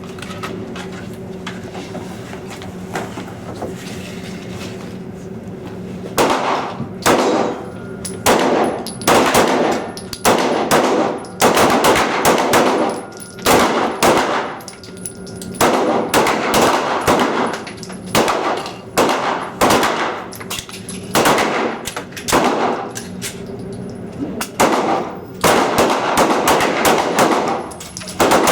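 Several pistols firing at once along a firing line, shots overlapping in quick irregular clusters. The firing starts about six seconds in, after a quieter stretch.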